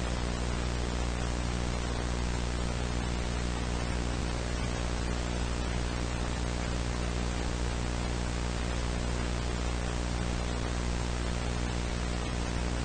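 Steady static hiss over a low, buzzy hum, unchanging, like the dead air of a broadcast between emergency alert messages.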